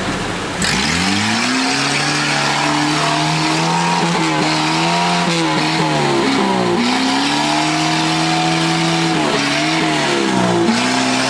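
Old flat-fender Jeep's engine revving under load as the Jeep crawls through deep mud, its pitch climbing, holding and dipping several times with the throttle.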